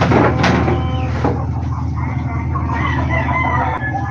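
A rooster crowing: one long call in the second half, over a steady low hum. A few short knocks come before it.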